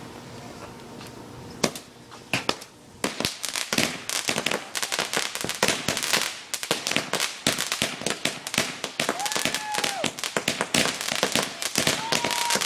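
A firework going off. There is one sharp bang about two seconds in, then a few more cracks, and from about three seconds on a dense, continuous run of rapid crackling pops.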